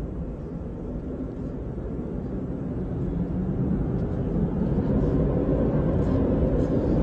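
A low, steady mechanical rumble, like a large engine or machine hum, slowly growing louder. A few faint clicks come in the second half.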